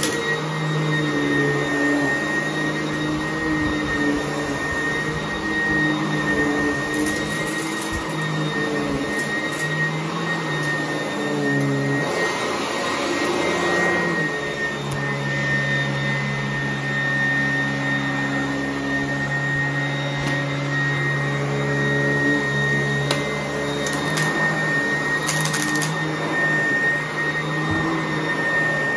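Sanitaire upright vacuum cleaner running on carpet: a steady high motor whine over a rushing hum, the lower hum shifting up and down in pitch.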